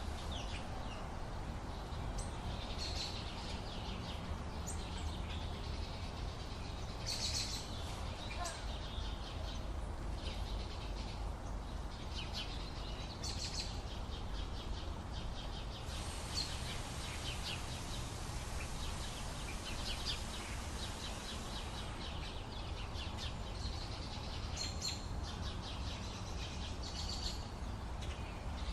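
Several birds chirping and singing, a dawn chorus of short, repeated calls overlapping one another, over a steady low background rumble.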